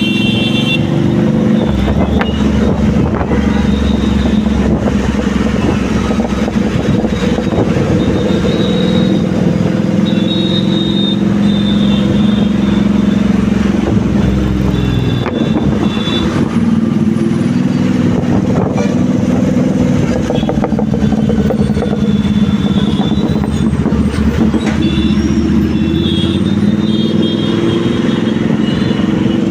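Road traffic: vehicle engines running in a steady drone, with short horn toots now and then.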